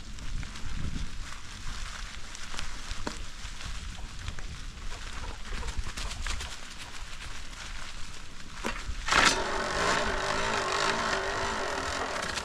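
Bicycle rolling along a leaf-strewn farm trail: a steady rustle and rumble with scattered small crackles and clicks. About nine seconds in, a louder steady pitched sound sets in and holds.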